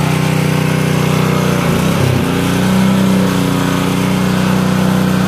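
DeWalt 3400 psi gas pressure washer's small engine running steadily. About two seconds in its note dips briefly and then recovers, as the spray wand is triggered and the engine takes up the pump's load.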